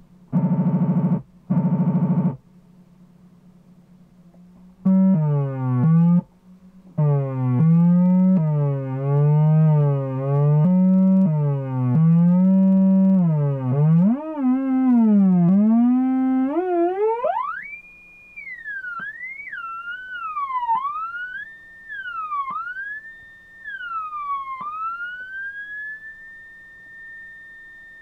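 Homemade electronic sound-effects board producing synthetic tones. First come two short buzzes, then a buzzy tone that slides up and down like a warbling siren, climbing sharply near the middle. After that a purer tone swoops downward over and over, and near the end it settles into a steady high whistle.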